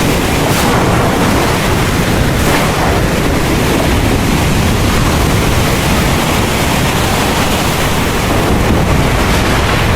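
Heavy rain pouring steadily, a dense even hiss over a deep continuous low rumble.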